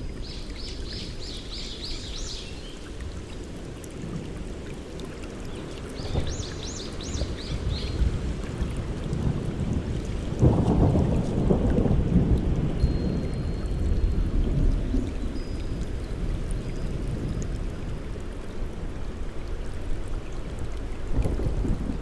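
Steady rain falling, with a low rumble of thunder swelling about ten seconds in. A bird calls a quick run of high repeated notes near the start and again about six seconds in.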